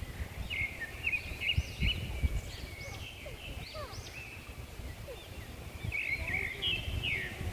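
Birds calling over and over with short squeaky chirps and rising-and-falling notes, over an uneven low rumble of wind on the microphone.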